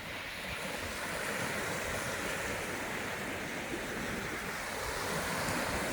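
Lake waves washing steadily onto a rocky shore, a continuous noise of water that swells slightly near the end.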